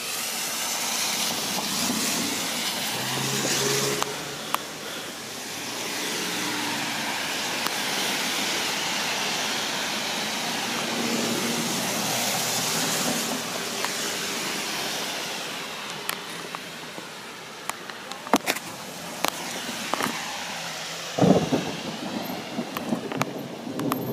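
Cars passing on a rain-soaked street, their tyres hissing through the water in long swells, with faint engine hum and scattered sharp clicks. A short louder thump comes near the end.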